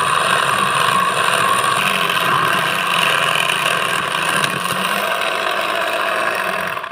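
Homemade mini cutting machine, a salvaged DC motor spinning a small cutter bit, running steadily while it cuts through aluminium plate: a constant motor whine with a grinding, chattering cut. The motor cuts off abruptly at the very end.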